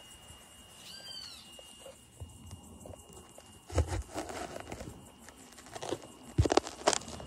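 Handling noise from a phone being set down and adjusted by hand: rubbing and scraping with a few sharp knocks, loudest near the end. A steady high-pitched insect drone runs underneath.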